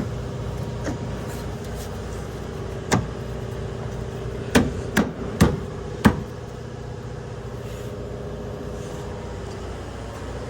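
Five sharp metal knocks, one on its own and then four close together over about a second and a half, from tools striking metal while engine-mount bolts go back in. A steady low mechanical hum runs underneath.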